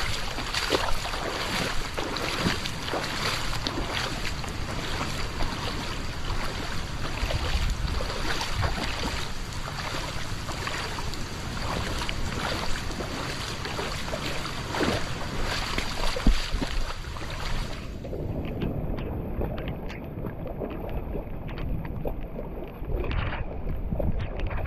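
Legs wading through shallow floodwater, with repeated splashing and swishing at every step and wind on the microphone. About three quarters of the way through the sound suddenly turns duller.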